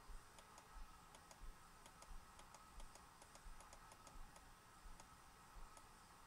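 Near silence: faint room tone with light ticking, about two to three ticks a second, over a faint steady hum.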